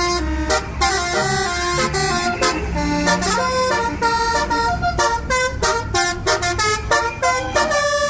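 A bus's basuri musical horn playing a fast melody, its loud tones hopping from note to note, over the low rumble of the bus's engine.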